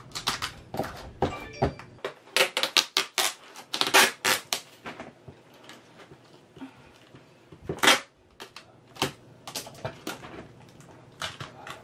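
Tape being pulled off its roll in short rips and pressed along the sides of a plastic storage tote to hold the lid shut, with clicks and knocks of the plastic. The rips come thick and fast in the first half and grow sparser after.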